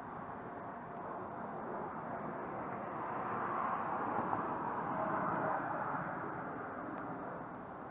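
A passing vehicle: a steady rush of noise that swells toward the middle and fades again, picked up outdoors by the WOLFANG GA100 action camera's built-in microphone.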